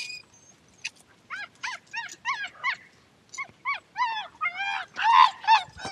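A dog giving a quick run of high yips and whines, about three a second, loudest near the end: excited by a wild animal up on the mountain.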